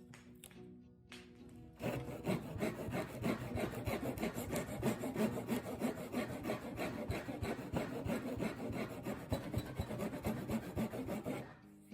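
Hand saw cutting into wood for a notch, in quick back-and-forth strokes that start about two seconds in and stop near the end.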